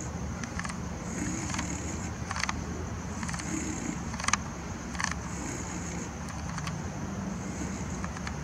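Steady low outdoor background rumble with a faint high hiss that comes and goes, and about eight short sharp clicks scattered through it.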